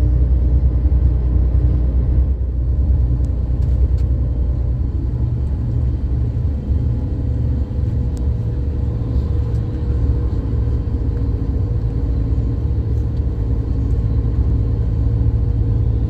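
A car driving along, with a steady low rumble of road and engine noise.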